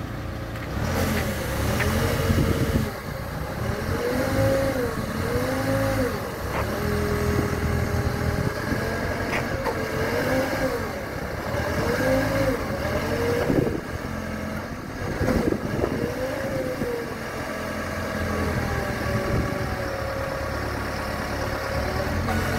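Manitou MT1440 telehandler's diesel engine running and being revved up and down again and again in short blips, with a few sharp knocks in between.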